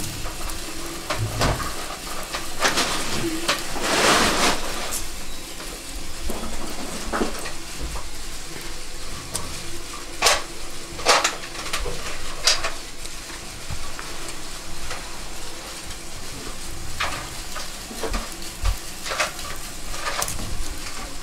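Wood fire crackling and hissing in a small iron stove, with metal scrapes and clinks now and then as the embers are stirred with a poker in the open firebox.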